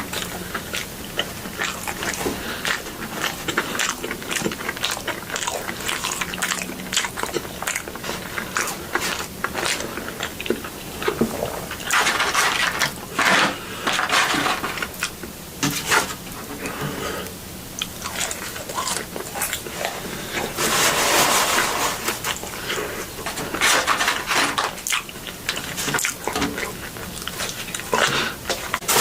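Close-miked chewing and biting of food, with wet mouth clicks and crunches throughout and a few longer, louder noisy bursts in between.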